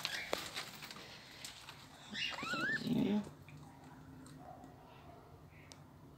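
Caged budgerigars giving a brief warbling chirp with quick rising and looping pitch about two seconds in, after a few light clicks and rattles in the first second.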